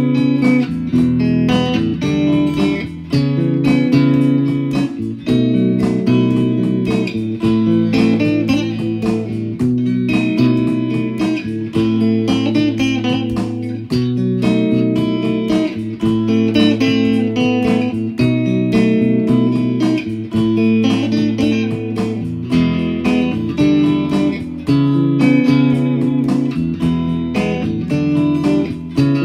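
Instrumental guitar music: plucked notes and held chords over a low bass line, at a steady even level.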